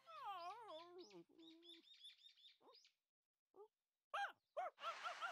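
A cartoon dog's long, wavering yawn, with small birds chirping. About four seconds in come two short, sharp yelps as the dog startles.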